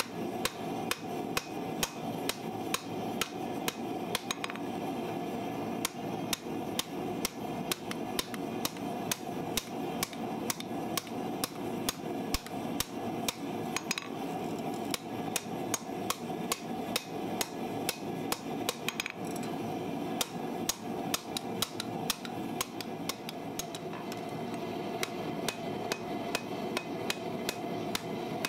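Hand hammer striking red-hot steel from a farrier's rasp on an anvil, in a steady rhythm of about two blows a second, each blow ringing sharply over a steady background noise.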